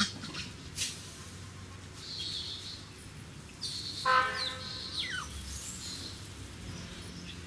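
Forest background with a few faint clicks, then about four seconds in a short high-pitched animal call followed by two quick falling chirps.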